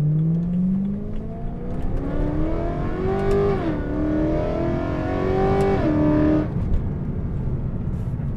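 BMW E93 M3's V8 with its exhaust valves open, heard from inside the cabin under hard acceleration: the revs climb, dip for a quick upshift about three and a half seconds in, climb again, then fall away as the throttle lifts about six seconds in, leaving a low cruising drone.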